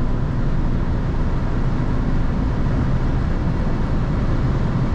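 Cabin noise of a 1988 Mercedes 260E W124 accelerating at about 170–180 km/h, its 2.6-litre straight-six drone blended with steady wind and tyre noise.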